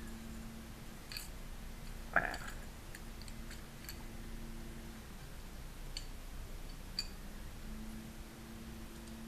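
Steel parts of a 1911 A1 pistol clicking and clinking as they are handled and fitted during reassembly: a handful of light clicks, the loudest about two seconds in with a short metallic ring. A steady low hum runs underneath.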